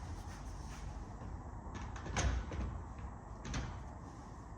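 Moulded resin sofa frame pieces knocking together as they are clipped and locked into place: a solid clunk about two seconds in and a lighter knock a second later.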